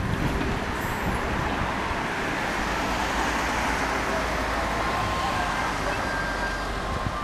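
Street traffic noise, with a vehicle passing close: its noise swells about two to three seconds in, then eases off.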